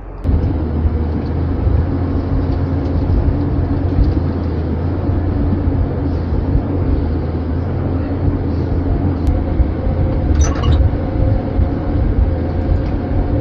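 Heavy machine's engine running steadily with a low hum, with a short high squeak about ten seconds in.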